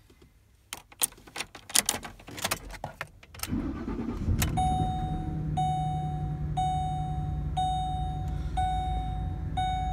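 Ford Expedition cold start: keys rattle and click at the ignition, then the engine catches about three and a half seconds in and settles into a steady idle. A dashboard warning chime sounds about once a second over the running engine.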